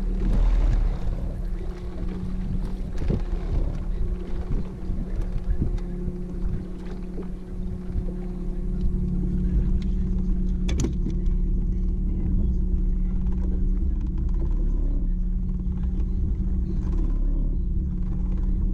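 A boat's motor running steadily with a low hum, and a single sharp click about eleven seconds in.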